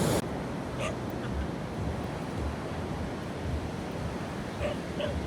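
Beach ambience: surf washing on the shore, with gusts of wind buffeting the microphone in low thumps.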